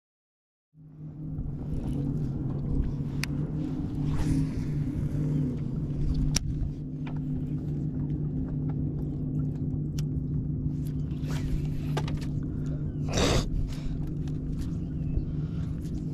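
A boat motor running with a steady low hum, with wind rumbling on the microphone. A few sharp clicks and knocks, and one brief loud rush of noise near the end.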